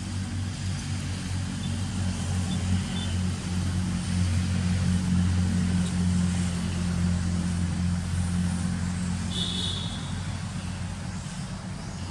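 A motor vehicle's engine running at a steady low hum, growing louder toward the middle and fading toward the end.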